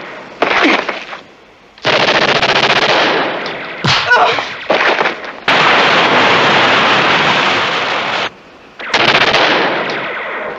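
Submachine guns firing long bursts of automatic fire, about five bursts with short gaps between them. The longest burst runs nearly three seconds.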